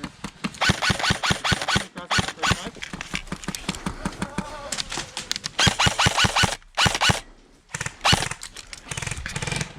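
Airsoft guns firing: strings of sharp clicks and pops, several a second, in bursts separated by short pauses.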